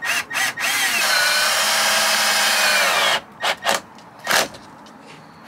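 Milwaukee cordless drill driving #10 self-tapping screws into wood: a few quick trigger pulls, then one run of about two seconds whose whine sags slightly as the screw bites, then three short bursts as it is snugged down.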